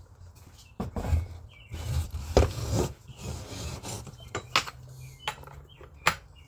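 Irregular clinks, knocks and rubbing of metal and plastic parts being handled, as the chain is taken off a Stihl MS250 chainsaw, with a cluster of knocks in the first few seconds and single sharp clinks later on.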